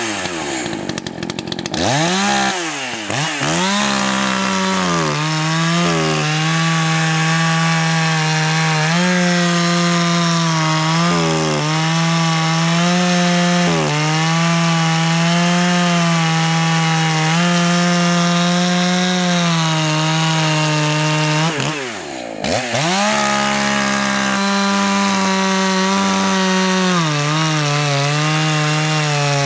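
Echo CS-590 two-stroke chainsaw running at full throttle while cutting through a log. The engine note wavers under load, and about three-quarters of the way through the revs briefly dip and climb back. The high-speed carburetor screw has just been leaned about an eighth of a turn, and the cut tests whether the engine now clears up under load.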